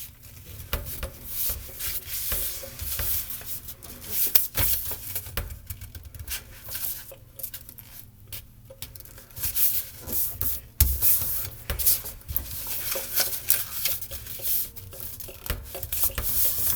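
A sheet of paper being folded, with fingers rubbing the crease flat: irregular rustling and scraping of paper, with a few sharper taps.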